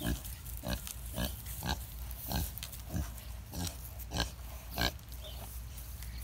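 A pig grunting in short, regular grunts, nearly two a second, which stop about five seconds in.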